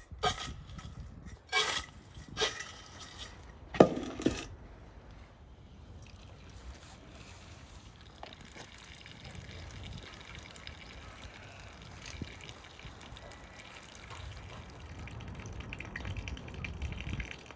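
A few sharp knocks in the first four seconds, the loudest near the fourth second. Then a thin stream of water trickling steadily from a samovar's tap into an enamel basin of dried apricots and raisins.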